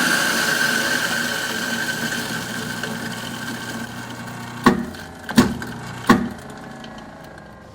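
A steady whirring noise with a held tone slowly fades, then three sharp knocks come about two-thirds of a second apart.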